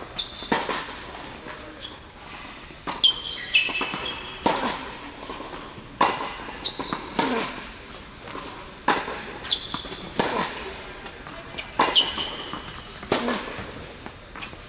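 Tennis rally on an indoor hard court: a dozen or so sharp racket strikes and ball bounces, roughly one a second, echoing in the hall, with short high sneaker squeaks on the court between shots.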